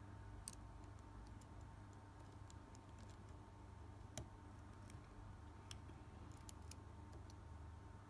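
Faint, irregular small metallic clicks of a dimple pick and tension wrench working the pins inside a five-pin World Ball dimple euro cylinder, over a low steady hum. The sharpest clicks come about half a second in, around four seconds in, and a few between five and a half and seven seconds.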